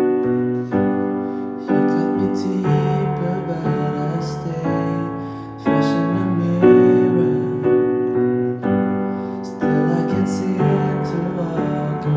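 Piano playing slow, sustained chords, a new chord struck about once a second.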